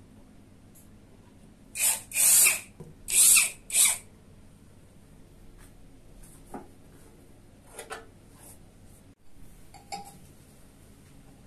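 Makita cordless drill-driver run in four short bursts about two seconds in, backing out the screws of the machine's sheet-metal cover. Then a few light clicks and knocks as the cover is handled.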